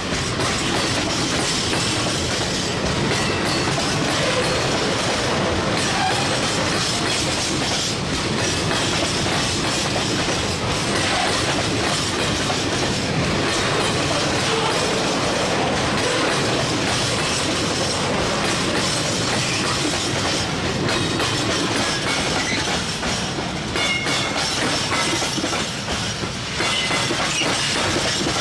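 A heavy train rolling by over bad rail joints: a steady, loud rumble with a rapid clatter of wheel knocks as the wheels pound across the worn joints.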